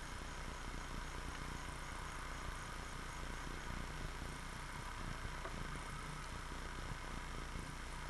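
Steady hiss and low electrical hum from a trail camera's built-in microphone. Faint, evenly repeating high insect chirps fade out a few seconds in.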